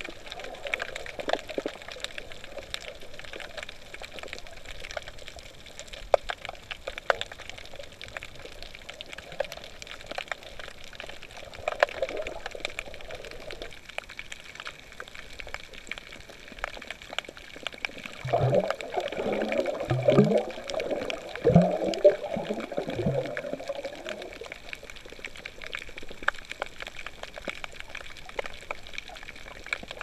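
Water heard underwater: a steady hiss with scattered sharp clicks, and a run of loud gurgling bubbles for several seconds a little past the middle.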